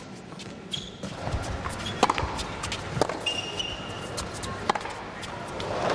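Tennis ball being struck by rackets in a rally on an indoor hard court: sharp pops roughly a second apart over crowd background, with the crowd noise swelling as a cheer near the end.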